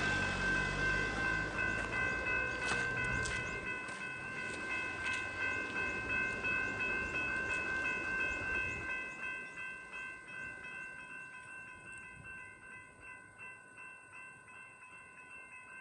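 Level crossing's electronic bells ringing on, a repeating chime of several steady tones, while a passing train's rumble fades away over the first nine seconds or so, with a few sharp clicks of wheels over the rails about three seconds in.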